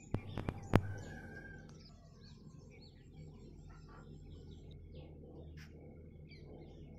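Small birds chirping and calling over a faint low background rumble, with four quick sharp knocks in the first second.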